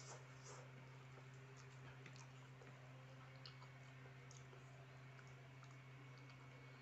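Faint eating sounds: scattered small clicks from chewing fried instant noodles and from a metal fork in a plastic bowl, over a steady low hum.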